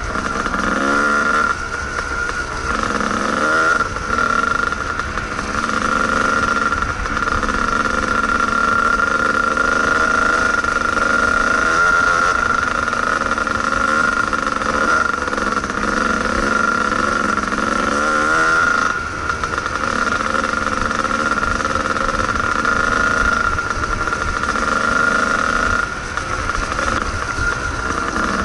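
Two-stroke single-cylinder engine of a Kawasaki KDX220 dirt bike heard from on board while riding a trail, revving up and down with the throttle, with a few brief drops where the throttle is let off.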